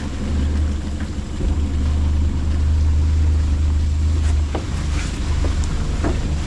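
A vehicle running with a steady low rumble, with a few faint knocks in the second half.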